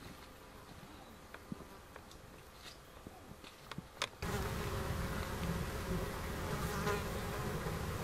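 Insects buzzing steadily, with a few faint clicks in the first half. The sound steps up suddenly to louder and fuller about four seconds in, at a cut in the recording.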